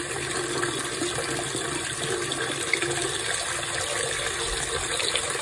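Bathtub tap running steadily, pouring water into a tub that already holds shallow water.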